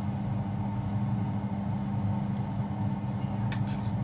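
Steady low hum with a few short clicks near the end.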